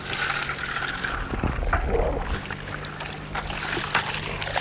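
Water pouring and splashing as a cast net full of live shad is shaken out into a plastic bucket held over the water, with a steady low hum underneath.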